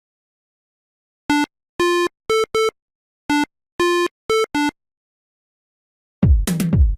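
A short electronic beep tune in buzzy square-wave tones: four notes stepping up in pitch (short, long, short, short), played twice. Music with a drumbeat starts near the end.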